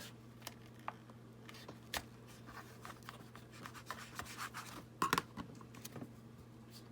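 Paper rustling and small clicks and taps as paper craft pieces are handled and fastened with a metal brad, with a sharper cluster of clicks about five seconds in. A steady low hum sits underneath.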